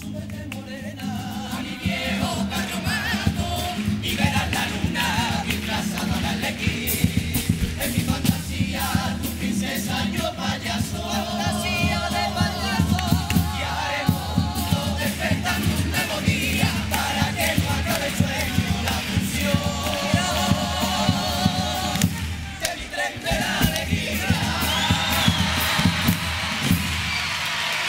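Carnival comparsa of young male voices singing in chorus over guitars, with drum strikes keeping the beat. The song pauses briefly about 23 seconds in, picks up again, and the audience begins cheering and applauding near the end.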